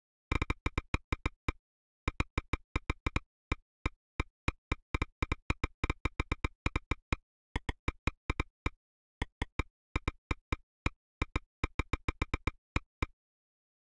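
A series of sharp, identical clicks, about eight a second, in short irregular runs with brief pauses between them.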